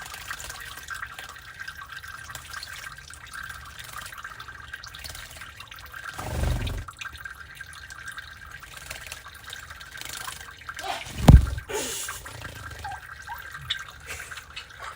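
Java sparrows bathing in a water dish: a steady run of small splashes and drips. A soft low thump about six seconds in, and a sudden, much louder burst about eleven seconds in.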